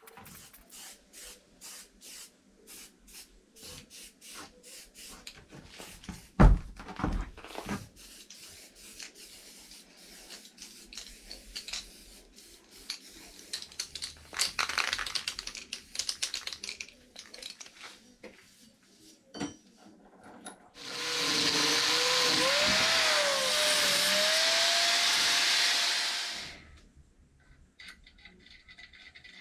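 Workshop handling of the old hydraulic jack's parts: light clicks and taps, one loud knock about six seconds in and some scraping, then a loud steady hiss lasting about five seconds that cuts off suddenly.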